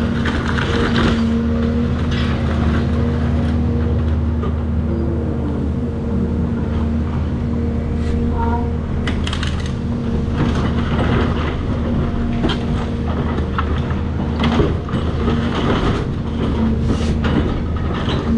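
Caterpillar 336 excavator's diesel engine running steadily, with irregular crunching and knocking from demolition debris and the machine working, more frequent in the second half.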